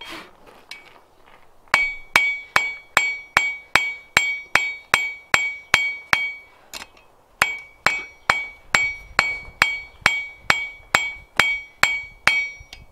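Hand hammer striking a red-hot steel bar on an anvil to draw out a taper. The blows are steady, about two and a half a second, each with a bright metallic ring. They come in two runs of about a dozen, with a short pause about halfway.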